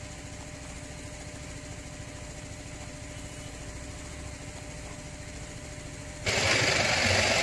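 Motorcycle engine running at low speed, a steady low rumble with even firing pulses. About six seconds in, music cuts in much louder.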